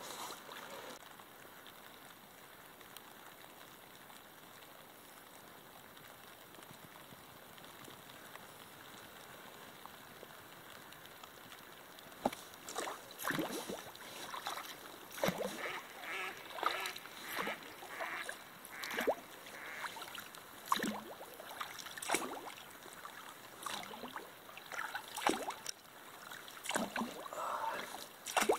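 Faint steady hiss of moving river water, then, from about twelve seconds in, a wooden pole paddle dipping and pulling through the water, splashing and dripping about once a second.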